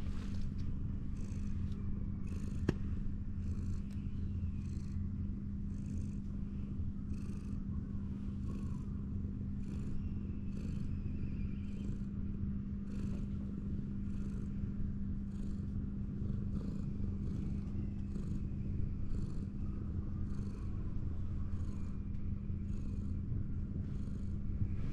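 Orange tabby cat purring steadily while being stroked, with a soft swish repeating about once a second.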